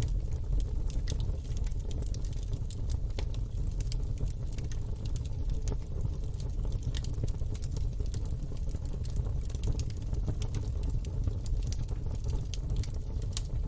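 Fire in a fire pit crackling, with irregular sharp pops and snaps over a steady low rumble.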